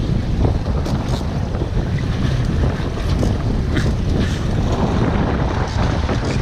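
Boat under way at sea: steady engine and water rumble with wind buffeting the microphone and occasional splashes.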